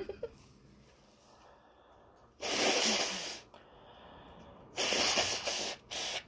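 A person blowing their nose into a paper tissue: two forceful blows about a second each, then a short final puff.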